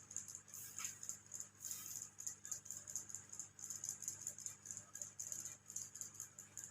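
Hands massaging a head: a fast, uneven, rhythmic scratchy rustle of fingers rubbing and working through hair.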